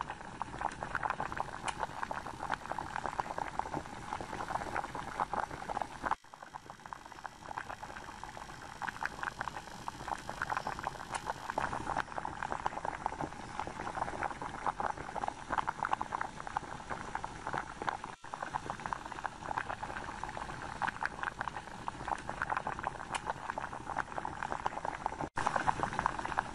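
Electrolysis rust-removal bath fizzing: a dense, steady crackle of tiny gas bubbles forming and popping as current from a 12-volt battery flows through the water around the submerged steel wrench, a sign the bath is working. The fizz breaks off briefly three times.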